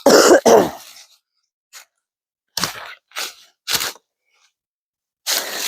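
Footsteps crunching over the ground while walking: two heavy steps at the start, three lighter ones around the middle, and a longer rustling crunch near the end.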